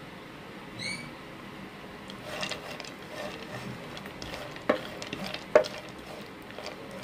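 Chopped dry fruits sizzling quietly in desi ghee in a nonstick frying pan as a spatula stirs them. The spatula knocks sharply against the pan twice a little after the middle, and there is a brief high squeak about a second in.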